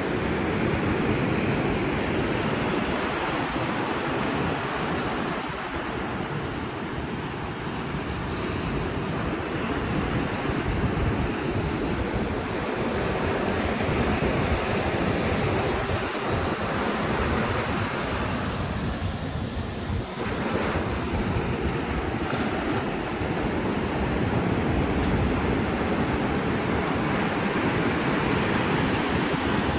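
Ocean waves breaking against a rock jetty and shore, a continuous rushing surf that swells and eases, with wind buffeting the microphone.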